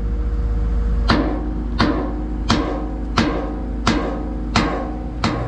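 Background music with a steady, slow drum beat, about one hit every 0.7 seconds, over sustained held tones.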